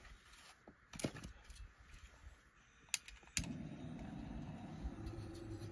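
A few light knocks of firewood being handled, then two sharp clicks, and about three and a half seconds in a handheld gas torch catches and runs with a steady roar, lighting the kindling at the bottom of a tandoor.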